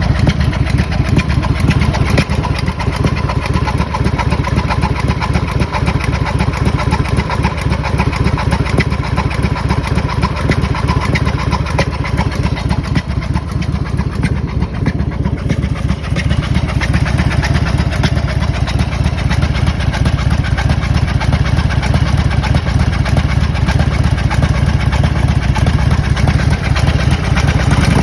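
1997 Harley-Davidson FLHR's Evolution V-twin engine running steadily at idle, with a noise that the owner takes for a bad sound.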